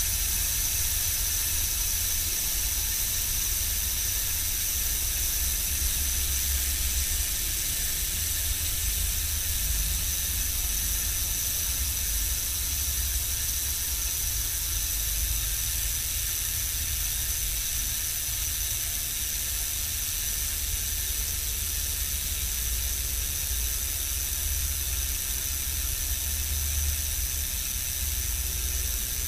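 Novatec Factor mountain-bike rear hub freewheeling as the wheel spins, its freehub pawls giving a steady, high-pitched buzz, with a low rumble underneath.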